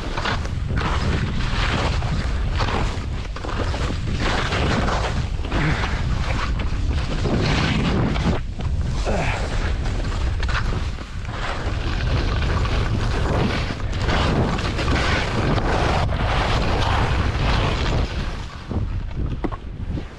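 Wind buffeting an action camera's microphone during a fast ski run, with the hiss and scrape of skis on snow surging with each turn. It dies down near the end as the skier slows.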